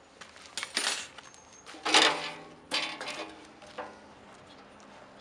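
Sheet-metal walls and legs of a homemade folding barbecue grill clanking as it is folded shut like a book. Several sharp metal clanks, each with a brief ring, come over about three seconds, and the loudest falls about two seconds in.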